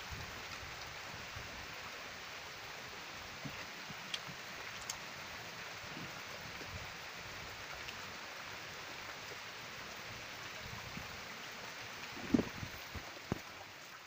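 Steady rain falling on a pond and the ground around it, a constant even hiss. A few light clicks, and a cluster of louder knocks about twelve seconds in.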